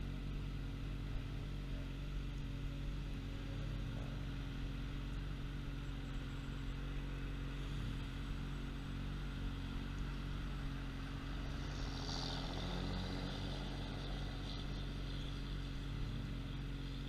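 Yamaha FZ1's inline-four engine idling steadily while the bike waits at a red light, with a brief hiss about twelve seconds in.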